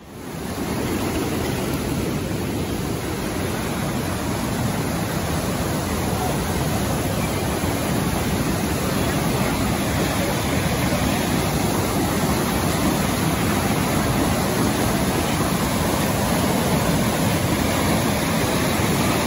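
Swollen mountain creek in flood, muddy brown water rushing over and around boulders in a loud, steady rush.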